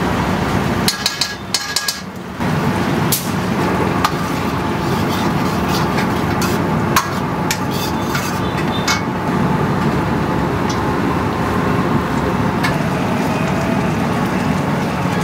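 Metal ladle clanking and scraping against a wok as the gravy is stirred, with sharp knocks every second or two over a steady background noise.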